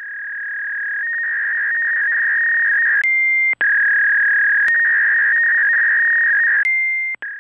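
A steady, high electronic tone, close to a pure sine, fading up over the first three seconds and stepping back and forth between two close pitches. Sharp clicks mark several cuts, and the tone drops out briefly about three and a half seconds in.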